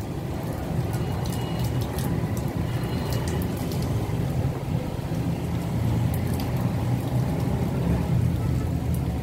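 Wind and rain in a storm: a steady low rushing noise from wind in the trees and on the microphone, with scattered sharp ticks of raindrops.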